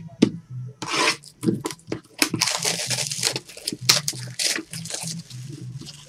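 Clear plastic shrink wrap being torn and pulled off a trading-card box, crinkling and rustling in quick bursts, with the box handled against the table.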